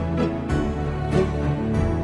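Background music: slow, sustained notes with a few struck notes over them.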